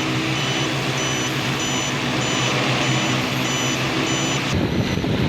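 Steady motor noise with a low hum under a high electronic beep that repeats about twice a second, like an operating warning tone. About four and a half seconds in, the sound turns to a rough, gusty low rumble, like wind buffeting the microphone, while the beeping goes on more faintly.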